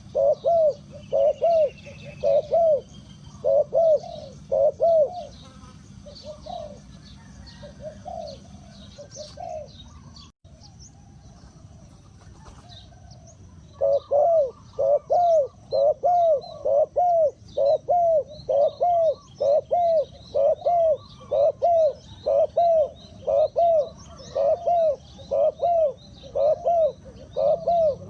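Spotted dove cooing in a long series of short, repeated coos, loud at first, fainter for several seconds in the middle, then loud and steady again, with faint chirps of small birds behind. This is the call that trappers play to lure wild spotted doves.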